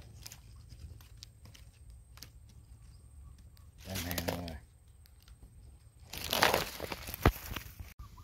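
Scattered crackles and rustling of handling at the pond edge while a hooked fish is lifted out on a pole line, with a brief low voice sound about four seconds in and a louder rustling burst a little after six seconds, ending in a sharp click.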